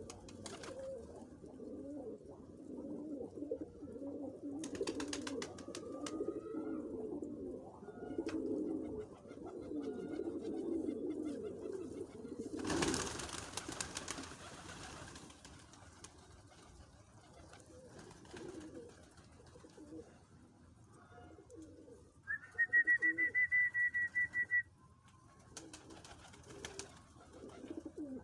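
Doves cooing over and over, low-pitched, densest in the first half. A brief rush of noise comes about 13 s in, and near the end a loud, steady high tone sounds for about two seconds.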